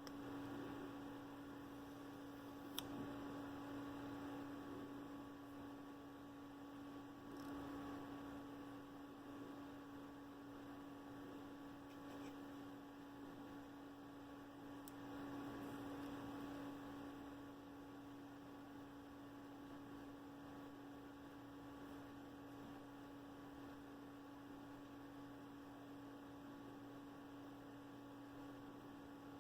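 Faint, steady electrical hum with a low hiss underneath, and a single small click about three seconds in.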